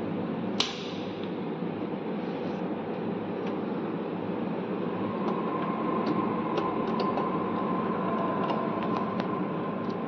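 Small plastic clicks and taps of a plug-in control relay being handled at its socket in a fan starter panel, with one sharper click about half a second in and scattered light ticks later. Under them runs a steady hiss, with a faint steady tone joining about halfway.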